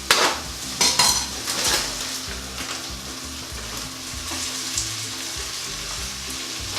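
Diced beef frying in a Dutch oven with softened onions, a steady sizzle as the meat starts to brown. A few sharp knocks from the pan in the first two seconds.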